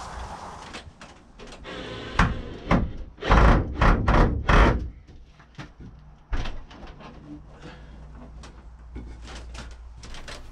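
Wooden knocks and thumps as timber bracing is handled and fitted against the shed's wooden wall framing, with a few loud thumps between about two and five seconds in, then lighter taps and clicks.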